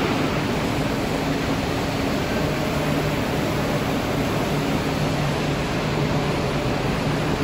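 EPE foam sheet extrusion line running: a steady machine noise with a faint low hum under it.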